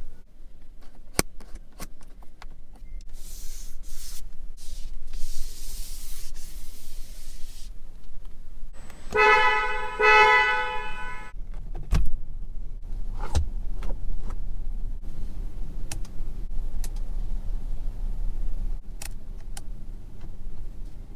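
Geely Binyue COOL's horn sounding in two short honks, heard from inside the cabin, about nine to eleven seconds in. Sharp clicks of cabin controls come before and after it.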